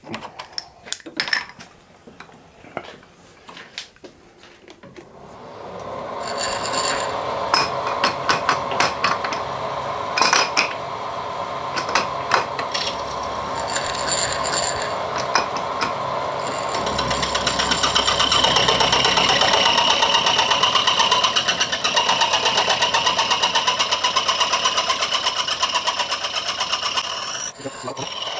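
A small milling machine's end mill cuts the edge of a brass strip held in the vise, a steady cutting noise with many small ticks. A few clicks of setting up come first; the cutting starts about five seconds in, grows louder partway through and stops near the end.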